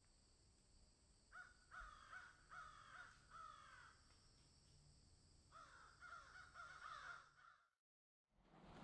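A bird calling faintly: a run of short calls, each falling in pitch, about two a second, then after a pause a second run, cut off abruptly shortly before the end.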